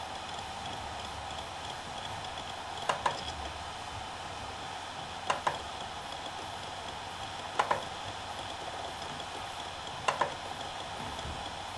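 Seagate BarraCuda ST2000LM015 2.5-inch 2 TB hard drive spinning with a steady whine, its heads seeking in quick double clicks about every two and a half seconds.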